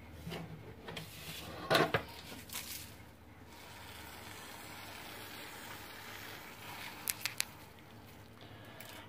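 Granulated sugar poured in a steady stream into simmering milk in a pan, a soft even hiss lasting a few seconds. A knock from handling the container comes near two seconds in, and three quick taps come near the end.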